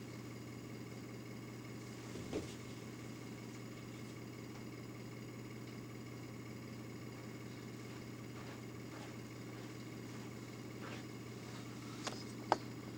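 Steady low hum with a faint hiss. A light click comes about two seconds in, and two sharper taps come near the end.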